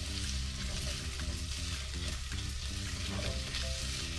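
Diced onions sizzling in hot olive oil in a stainless steel pot as they are sautéed, with a spatula stirring and scraping them around the pot.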